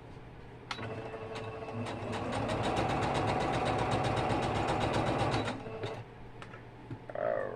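Electric sewing machine stitching: it starts slowly about a second in, picks up speed into a fast, steady run, and stops about six seconds in.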